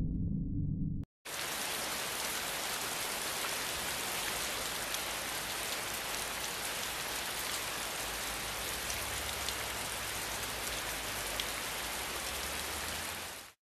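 Steady static hiss like an untuned TV, starting after a brief cut to silence about a second in and stopping just before the end. A faint low hum runs under it in the second half.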